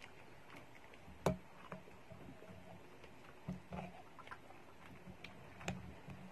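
Close-up chewing and mouth sounds of someone eating a large beef meatball, with scattered sharp clicks, the loudest about a second in and near the end.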